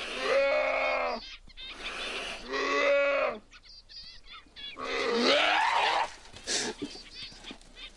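Young cougar giving three drawn-out yowling threat calls at a black bear, each about a second long, the last one rising in pitch.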